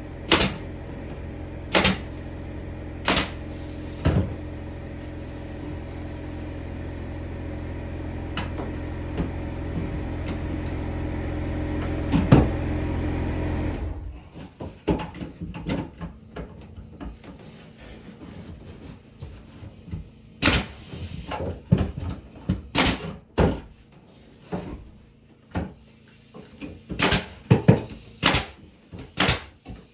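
A machine's motor humming steadily, slowly getting louder, then cutting off suddenly about halfway through. Sharp knocks land every second or two while it runs. After it stops come scattered lighter knocks and taps, like wood and tools being handled.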